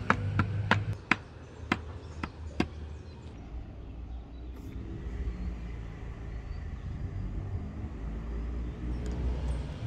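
A series of sharp wooden knocks, about eight in under three seconds: an axe handle being struck down on its end to drive and seat the Plumb axe head onto it. A steady low background rumble fills the rest.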